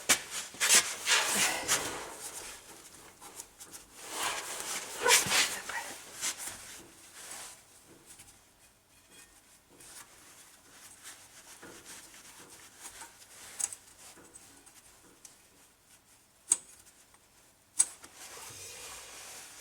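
Steel-backed brake pads and their spring clips being worked in and out of a rear disc-brake caliper bracket: scraping and rubbing of metal on metal in two spells, with two sharp metallic clicks near the end.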